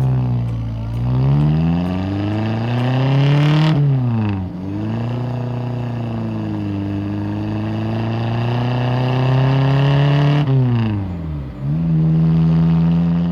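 Motor vehicle engine revving: its pitch climbs, drops sharply about four seconds in as if shifting gear, runs steady, then dips and climbs again near the end.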